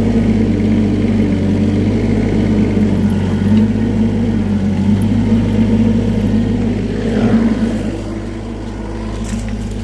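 An engine running steadily under load, easing off about eight seconds in.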